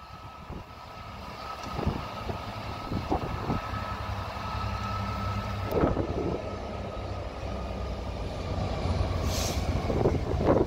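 Class 66 diesel-electric freight locomotive approaching at low speed at the head of a freight train, its two-stroke diesel engine running with a steady drone that grows louder as it nears. A few short knocks sound over it.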